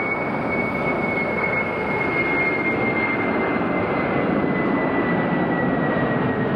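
Boeing 747-400 freighter climbing out after takeoff: the steady roar of its four jet engines, with a high whine that slowly falls in pitch.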